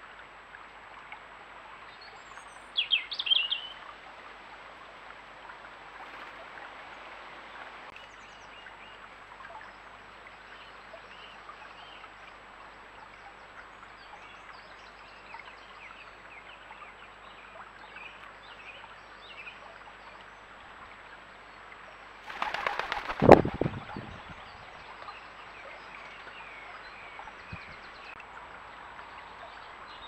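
Shallow stream running steadily, with small birds chirping faintly throughout. A loud close bird call sounds about three seconds in, and a loud flurry of bird wings flapping about 22 seconds in.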